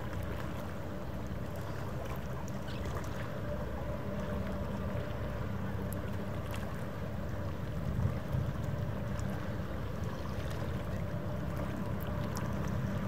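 Low, steady drone of a large ship's engines carried across the harbour water, with a faint hum above it, growing slightly louder near the end.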